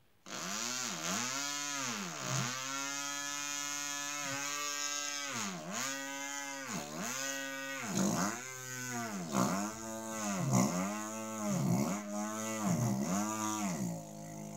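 A person's voice imitating a chainsaw: a buzzing vocal drone that swoops up and down in pitch like a saw revving. It holds one pitch for a few seconds, then revs up and down in quick swells, about three every two seconds.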